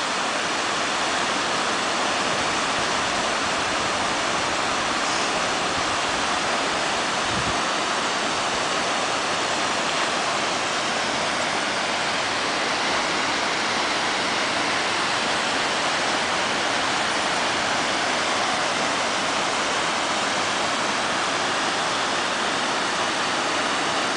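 Waterfall falling onto rock, a loud, steady rushing of water with no change.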